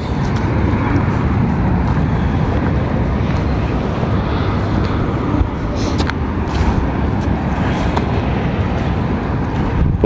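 Wind rumbling on a phone's microphone, a steady low rumble that rises and falls, with a few short crackles about five and a half to six and a half seconds in.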